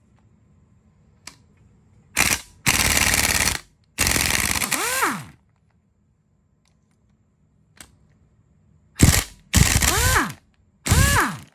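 Impact wrench hammering in short bursts on the head bolts of a 350 small-block Chevy, breaking them loose: three bursts about two to five seconds in and three more near the end. Several bursts end with the tool's pitch falling as it spins down.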